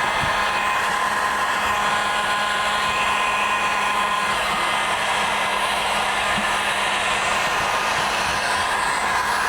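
Electric heat gun blowing steadily, its fan running with a faint whine, heating vinyl film so it can be stretched around a corner.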